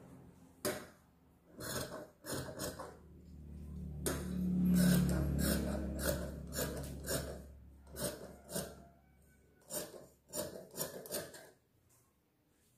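Large fabric shears snipping through cloth in short runs of cuts, with fabric rubbing and rustling between them. A low rumble swells and fades through the middle.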